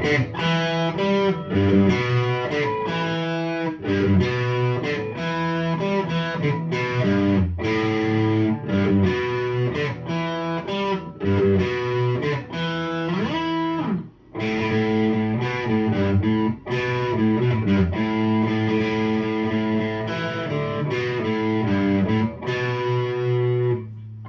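Fender Player Telecaster electric guitar with Seymour Duncan pickups, played through an amplifier on its bridge pickup. It plays picked chords and single-note lines, with a sliding note about halfway through and a brief break just after.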